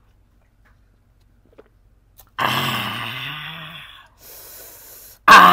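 A man reacting to a straight shot of gin: after a quiet swallow, a loud drawn-out vocal 'aah' of about a second and a half, then a hiss of breath forced out through clenched teeth, and a second loud cry starting near the end.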